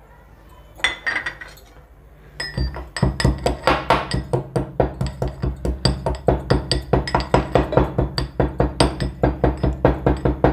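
Black peppercorns being pounded with a pestle in a mortar (kharal): a single knock about a second in, then from about two and a half seconds in a fast, steady run of sharp strikes, several a second.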